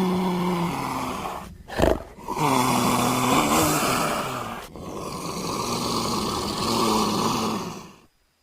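Big cat roaring and growling: three long, drawn-out calls with a short grunt between the first two, then an abrupt stop about eight seconds in. The roars are leopard and tiger recordings used as the voice of Dinofelis, an extinct sabre-toothed cat.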